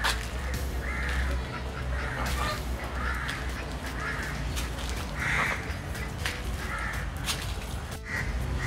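Birds calling with short, harsh calls repeated about once a second, over a steady low hum.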